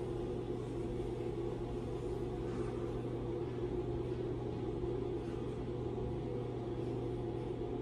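Elevator car travelling in its shaft, heard from inside the cab: a steady mechanical hum from the lift's drive, a low drone with a higher steady tone over it.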